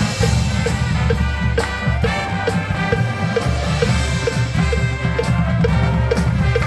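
Marching band playing: brass and drums with front-ensemble mallet percussion, over a steady beat of about two a second.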